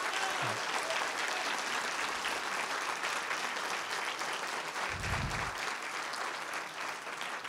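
Audience applauding steadily, a dense patter of many hands clapping. A short low thump about five seconds in.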